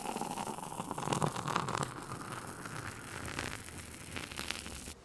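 Beer fizzing and crackling in a glass just after a pour, the carbonation hiss fading gradually and cutting off suddenly near the end.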